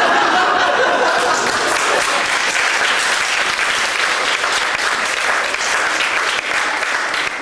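Live theatre audience applauding, mixed with some laughter near the start.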